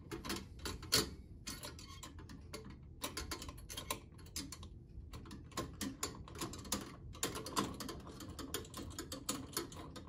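Screwdriver turning a mounting screw down through the fins of a Scythe Mugen 5 Rev.B tower CPU heatsink: a run of small, irregular metal clicks and ticks.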